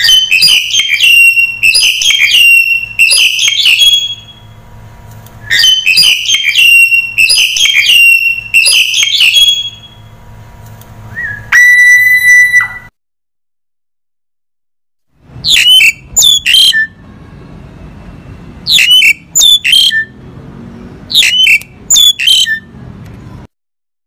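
Black-collared starling calling: two runs of rapid whistled and squawking notes, a single held whistle near the middle, then after a brief gap a series of separate sharp calls.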